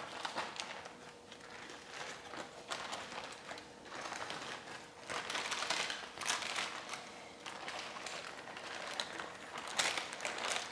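Baking paper rustling and crinkling in uneven strokes as it is peeled off a sheet of sponge cake, louder about halfway through and again near the end.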